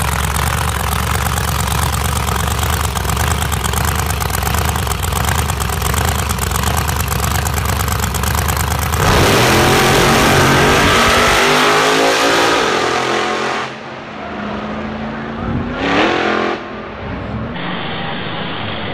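Engine of a modified VW Beetle drag car running loudly and steadily at the starting line. About nine seconds in it launches and pulls away, its pitch rising as it accelerates. It fades out, a short loud burst of engine comes through near sixteen seconds, and near the end a thinner-sounding recording of a car in street traffic takes over.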